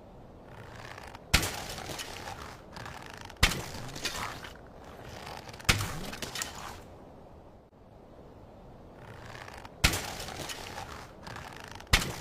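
Slingshot and arrow shooting sound effects: five sharp cracks, a second or more apart, each trailing off in about a second of noisy clatter.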